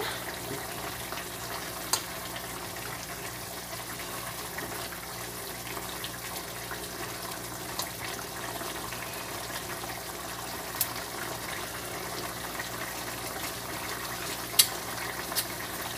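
Papaya and sardine broth simmering in a wok on a gas burner, a steady bubbling hiss, with a few light clicks of a metal spoon against the pan.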